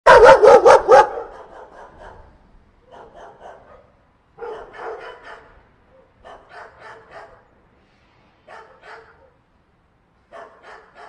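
A dog barking: a quick run of about five loud barks in the first second, then short, much quieter bursts every second or two.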